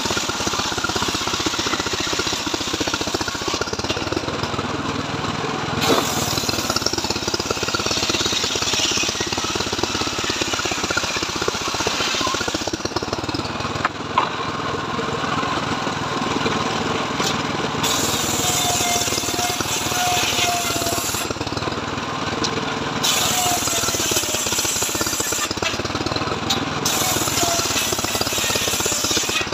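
Homemade engine-driven circular sawmill (gergaji srekel) ripping a mahogany log into boards. The engine runs steadily while the high, hissing noise of the blade cutting the wood starts and stops several times as each cut is made, with two sharp knocks along the way.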